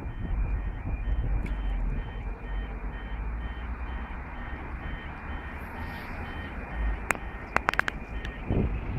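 Level crossing audible warning: a two-tone yodel alarm rapidly alternating between two pitches while the full barriers lower, over low wind rumble. It stops about seven seconds in, followed by a few sharp clicks as the barriers come to rest.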